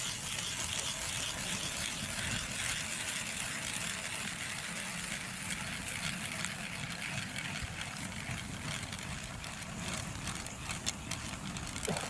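Powered ice auger running steadily as it drills a fishing hole through lake ice.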